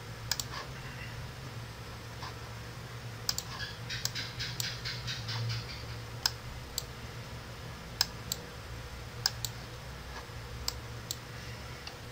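Computer mouse and keyboard clicks: scattered single clicks, with a quick run of keystrokes about four to five seconds in, over a steady low hum.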